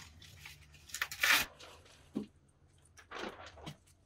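A few short, rough tearing and crunching noises from hands at work, the loudest about a second in, with shorter ones about a second and two seconds later.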